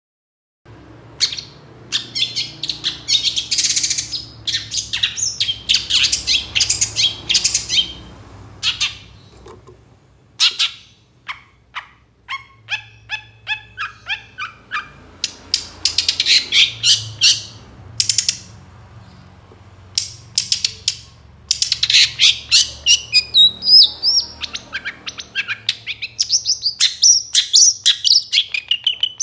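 A caged long-tailed shrike (cendet), in moult, calling loudly in rapid strings of harsh, high notes. A run of short, evenly repeated notes comes in the middle, and the calls grow denser again toward the end.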